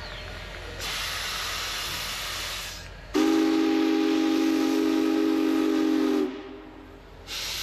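Union Pacific Big Boy 4014 steam locomotive venting steam with a loud hiss, then sounding its steam whistle in one deep chord of several tones for about three seconds. The hissing starts again near the end.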